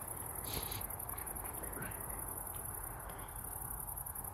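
Crickets chirring in a continuous high-pitched trill that pulses rapidly and evenly. A brief soft rustle comes about half a second in.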